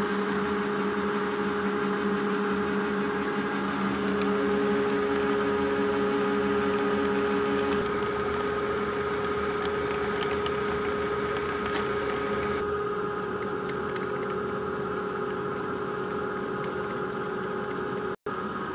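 Metal lathe running steadily, a continuous machine hum with a steady whine. A lower tone in the hum drops away about eight seconds in, and the sound cuts out for an instant near the end.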